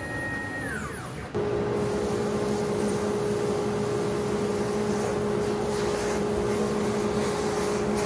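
A CNC router spindle's whine falls away as it winds down. About a second in, a dust extractor starts with a sudden, steady hum and rush of air as its hose vacuums wood chips off the freshly carved board.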